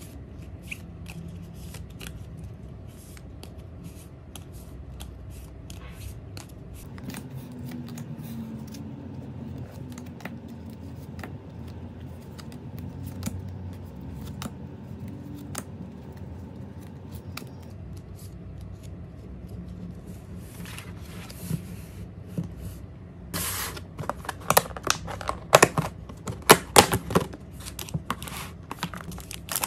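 A stack of cardstock photocards shuffled and sorted by hand: soft sliding and many small flicks of card. Near the end comes a run of louder crinkling and rustling as packaging is handled.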